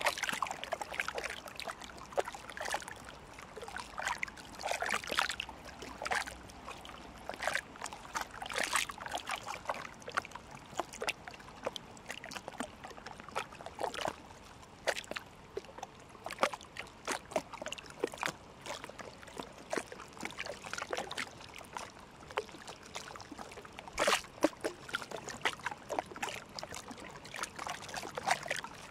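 Canal water lapping and trickling close by, a string of small irregular splashes and drips over a faint steady background.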